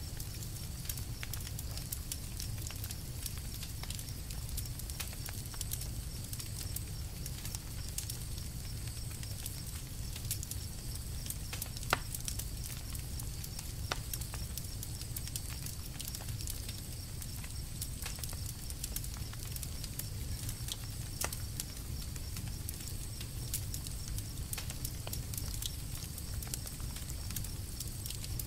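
Campfire burning: a steady low rumble under frequent small crackles, with a sharper pop about twelve seconds in.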